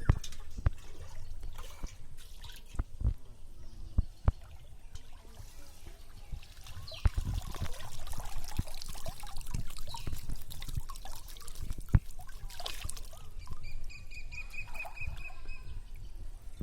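Water trickling, dripping and splashing, with scattered sharp knocks, heaviest from about halfway through. Near the end a bird gives a short run of quick repeated high notes.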